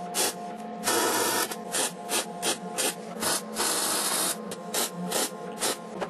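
MIG welder arc crackling in short bursts, several a second, with two longer continuous runs, one about a second in and one near the four-second mark, as beads are laid on a frame of 1-inch square mild-steel tubing to weld up its tacked joints.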